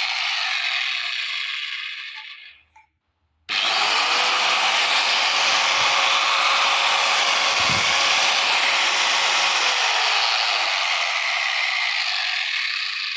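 Dumdaar angle grinder running free with no load, a dense high-pitched whirring hiss. It winds down and stops about two and a half seconds in, starts again abruptly about a second later and runs on steadily. This is a test run, and the machine is said to run well.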